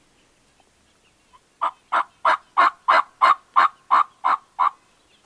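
A series of about ten loud hen turkey yelps made on a hunter's turkey call, evenly spaced at about three a second, to call in Merriam's turkeys.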